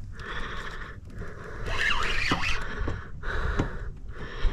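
A person breathing, one noisy breath after another, roughly one a second.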